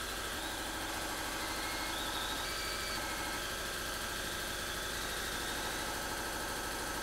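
Cordless drill running slowly and steadily with a flat-tip spot-weld bit, drilling out spot welds in high-strength steel body panel: an even mechanical whirr with a fine rapid vibration.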